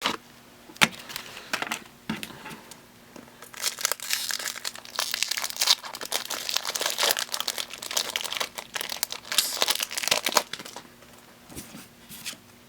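Foil wrapper of a Pokémon BREAKthrough booster pack crinkling as it is torn open and handled, scattered crackles at first, then dense crinkling for about seven seconds before it dies down near the end.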